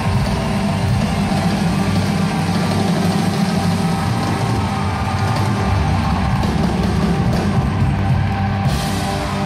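Live pop-rock band playing a loud, dense passage over a steady heavy bass. A brief bright hiss comes in near the end.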